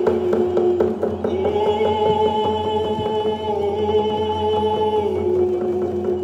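A group of voices singing together in long held notes to a steady beat of round hand-held frame drums. The sung note steps up about a second in and drops back down near the end.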